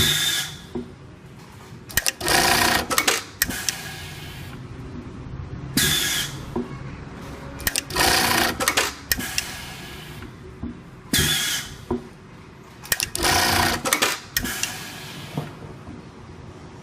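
RAMBO RM-128 automatic pattern sewing machine stitching in short runs of about half a second to a second and a half, six in all, with a steady machine hum in the pauses between them.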